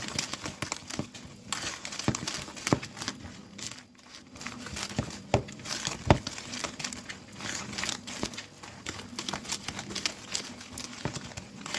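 Wire balloon whisk beating thick cake batter by hand in a plastic bowl: rapid, irregular clicks and scrapes of the wires against the bowl as the flour is mixed in.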